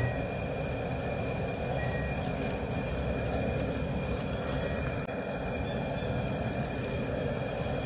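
Loco cooker's propane burner under a large aluminium stock pot, burning with a steady, unbroken rushing noise.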